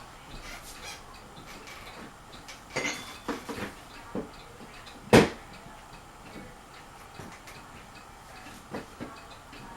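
Scattered sharp clicks and light knocks, with one much louder knock about five seconds in.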